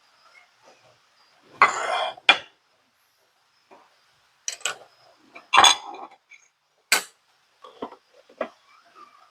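Plates and cutlery clattering and clinking in a handful of short, separate knocks as a meal is plated, the loudest about two seconds in and again around the middle.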